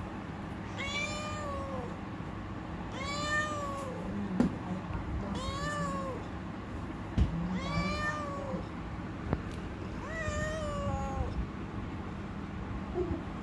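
Young male cream-coloured tabby cat meowing five times at a steady pace, each call about a second long and arching up then down in pitch. Two sharp knocks fall between the calls.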